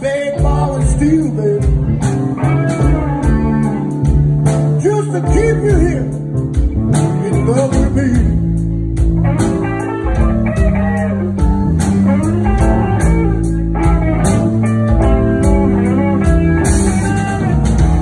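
Live blues band playing: electric guitars with bending lead lines over keyboard, bass and drums.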